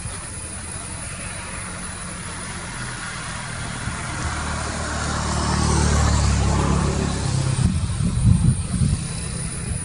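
Jet engines of a Boeing 787-8 Dreamliner running as the airliner taxis: a steady jet hiss over a low rumble that swells to its loudest about six seconds in, with uneven low rumbling near the end.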